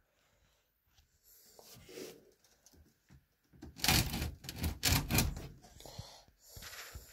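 Handling noise: a quick, irregular run of rustles and light clicks, like objects being picked up and moved about, starting about four seconds in.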